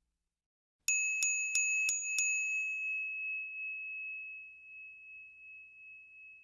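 A small bell rung five times in quick succession, about three strikes a second, its single clear tone then ringing on and fading slowly.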